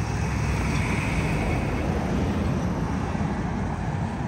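Road traffic: cars driving through an intersection, a steady wash of engine and tyre noise with a low rumble.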